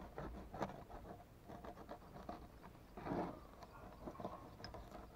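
Knife cutting along an Atlantic bonito's backbone on a wooden board to take off a fillet: a run of small crackling ticks and scrapes as the blade works along the bones, with one louder scuffing about three seconds in.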